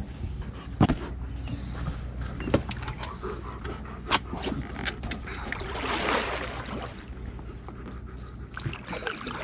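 Hand paddle stroking the water beside an inflatable dinghy: water swishing and splashing, with the loudest swish about six seconds in. A few sharp knocks come in the first four seconds, over a steady low rumble.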